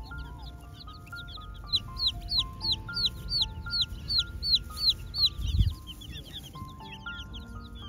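Chicks peeping over background music, with a loud run of short falling peeps, about three a second, from about two to five seconds in. A brief low thump follows just after.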